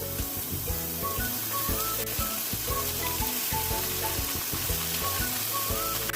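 Paneer, onion, mushroom and grated carrot frying in hot oil in a pan, sizzling steadily, under soft background music.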